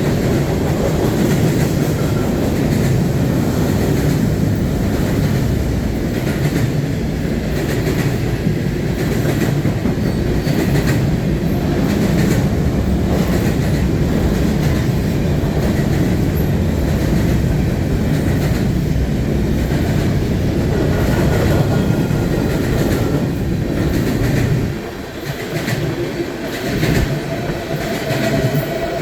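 CN freight train rolling past, a steady heavy rumble with wheels clicking over the rail joints. The rumble eases about 25 seconds in, and a thin steady tone comes in near the end.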